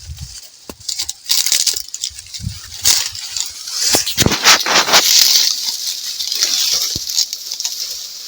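Dry maize leaves and stalks rustling and crackling as cobs are picked by hand, with irregular snaps and clicks, loudest from about three to five seconds in.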